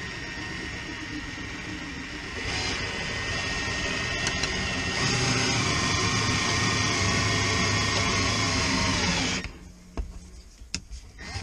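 Cordless drill driving a wire-out winder, pulling cutting wire through the windshield urethane: a steady motor whine that grows louder about two and a half seconds in and again about five seconds in, then stops sharply about nine and a half seconds in, followed by a few light clicks.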